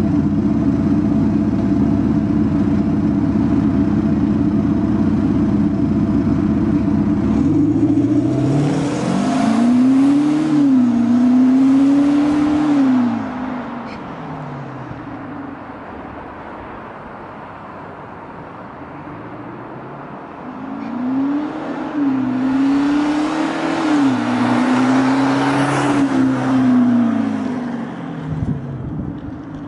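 VW Amarok pickup with a Kufatec Sound-Booster active sound generator, its speaker adding a synthetic V8-style note to the engine sound. It idles with a steady deep rumble, then about eight seconds in accelerates, the note climbing and dropping in steps through the gears. After a quieter stretch a second acceleration run climbs the same way around twenty seconds in and fades near the end.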